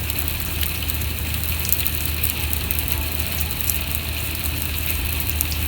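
Simulated heavy rain, water sprayed at 150 mm per hour, falling on a steel roof with a conventional lining material: a steady dense patter of drops with a low hum underneath.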